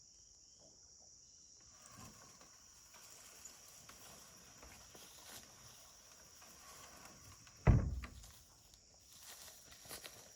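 A steady high insect buzz with scattered footsteps or rustling, and one loud, sudden thump about three-quarters of the way in that dies away within half a second.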